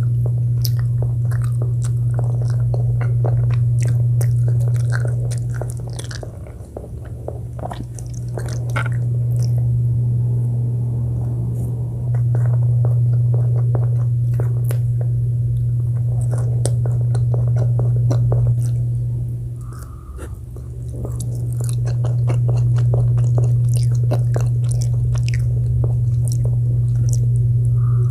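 Close-miked chewing and biting of food, full of small crisp mouth clicks. Under it runs a loud, steady low hum that fades briefly twice.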